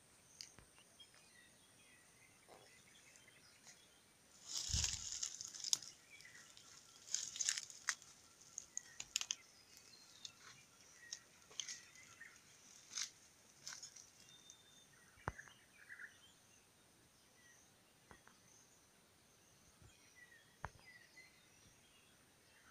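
Faint crunching and crackling of dry twigs and leaf litter underfoot, loudest in a cluster with a dull thump about five seconds in, then scattered clicks and snaps, over a steady high insect buzz.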